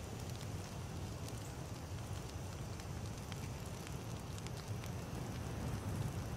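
Wood campfire burning: a steady low rumble of flames with scattered sharp crackles and pops from the burning wood.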